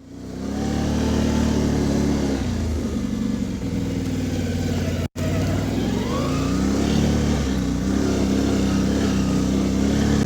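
Stihl MS 251 C two-stroke chainsaw engine running and revving, its pitch rising and falling. It cuts out abruptly for an instant about five seconds in, at an edit.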